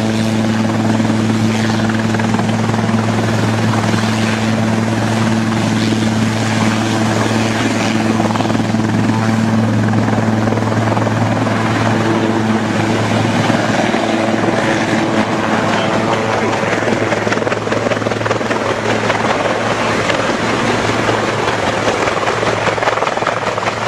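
Helicopter running close by: a dense rushing noise under a steady low hum. The hum weakens about halfway through while the rushing goes on.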